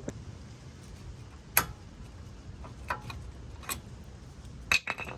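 A few separate sharp clicks and knocks from hand work on a car's front brake assembly, the loudest about a second and a half in and a quick cluster near the end, over a low steady hum.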